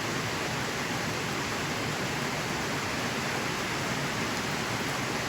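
Heavy rain falling steadily, an even hiss with no thunderclap.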